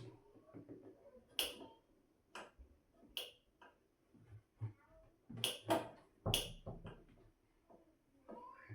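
Scattered plastic clicks and knocks from handling the washing machine's filter cover and drain filter cap, irregular and with a quick cluster just past the middle.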